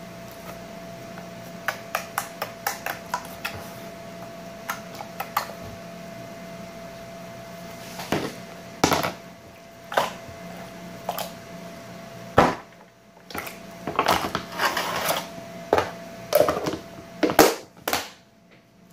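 Pink slime pressed and worked by hand on a tabletop, giving small sharp clicking pops. From about eight seconds in, a clear plastic tub is handled as the slime goes into it, with louder knocks, rustling and a sharp snap near the end as the lid is pressed on, over a steady appliance hum.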